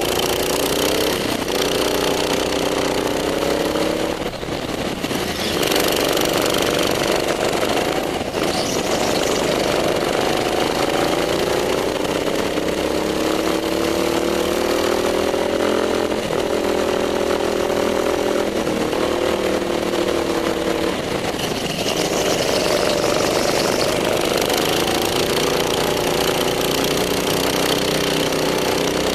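Go-kart's small engine at speed, heard from on board, its pitch climbing on the straights and dropping each time the throttle is lifted for a corner, several times over.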